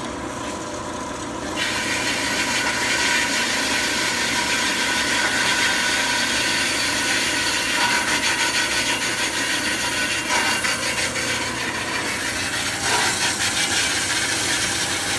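Ellis horizontal metal-cutting bandsaw running, its fine-tooth blade fed slowly down onto a round steel tube. About a second and a half in the teeth bite, and a steady rasping hiss of the blade cutting steel joins the hum of the motor and blade drive. Near the end the sound flutters in a regular pulse.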